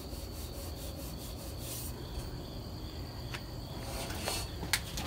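Quiet rubbing and handling noise, a hand moving over the steel frame and the handheld camera, with a few faint clicks in the second half. A steady high insect trill runs underneath.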